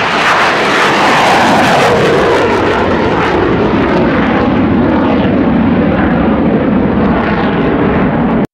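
An aircraft flying past, loud, its engine pitch falling steadily as it goes by, then cut off abruptly near the end.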